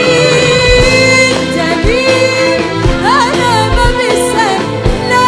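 A woman singing an Arabic song with a band behind her. She holds a long note at the start, then sings ornamented runs over a steady drum beat.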